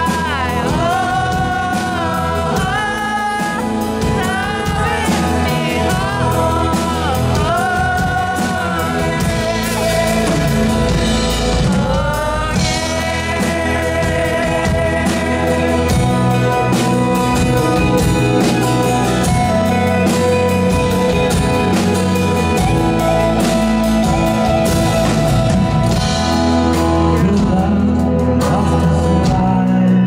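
Live band music: a man singing the lead over a strummed acoustic guitar and drums.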